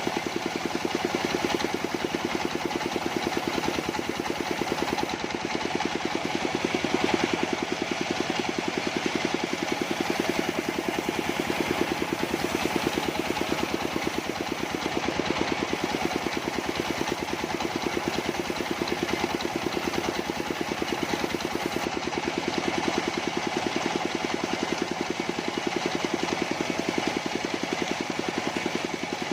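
Engine of a mobile sawmill running steadily with a fast, even chugging pulse, holding one speed throughout.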